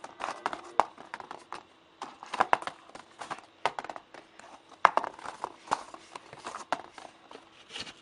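Folded paper of a modular origami model being handled: clusters of irregular crisp taps, crackles and rustles, with brief pauses between.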